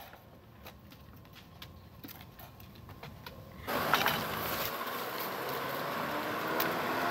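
A few faint clicks from handling a plastic dog crate's door. About three and a half seconds in, a steady outdoor rushing noise starts abruptly and runs on.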